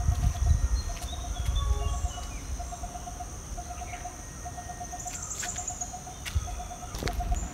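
Outdoor insect and bird ambience: a steady high-pitched insect drone, a short pulsing call repeated about once a second, and scattered bird chirps. A low rumble on the microphone in the first couple of seconds fades out.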